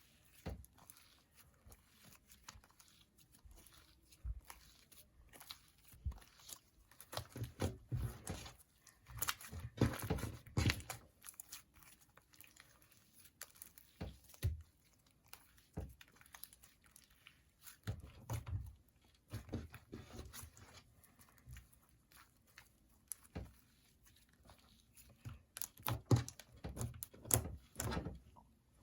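Sticky slime with Play-Doh mixed into it being kneaded and stretched by hand: irregular clusters of wet clicks, crackles and small pops, with quieter gaps in between.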